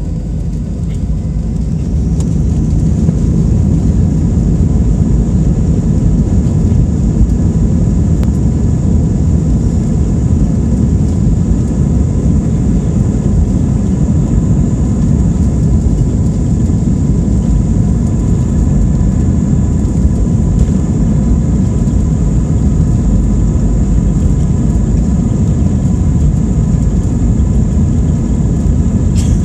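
Airbus A320's IAE V2500 turbofan engines spooling up over the first few seconds and then running steadily at high power on the takeoff roll, heard from inside the cabin. The sound is a deep rumble with a steady high whine above it.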